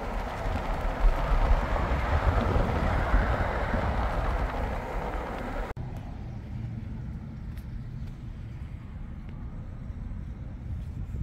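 Road and engine noise inside a moving car, a steady rushing sound. About six seconds in it cuts off suddenly to much quieter outdoor ambience: a low rumble with a few faint ticks.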